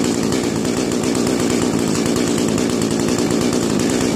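Chainsaw engine running steadily at an even, unchanging pitch, with no revving.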